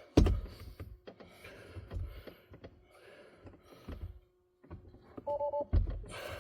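Clicks, knocks and rubbing as a performance brake pedal cover is worked by hand over the bottom edge of the pedal, with a sharp knock just after the start and another near the end. A short two-tone electronic beep sounds about five seconds in.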